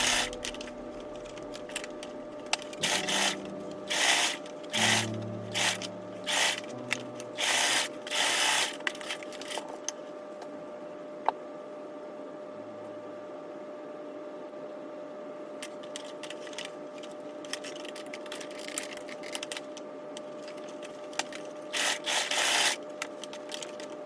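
Domestic sewing machine stitching hair weft tracks onto a wig cap in short runs of about half a second to a second each. The runs come one after another through the first nine seconds and start again near the end, with a long quiet stretch between.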